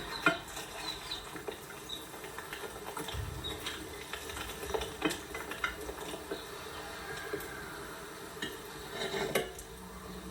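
Kitchen utensils clinking and scraping against pots and dishes: a scatter of light, irregular knocks, with a sharper one just after the start and a small cluster near the end.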